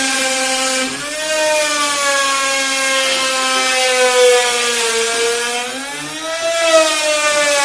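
Electric woodworking power tool running continuously with a steady motor whine, its pitch sagging and recovering as it works the wood.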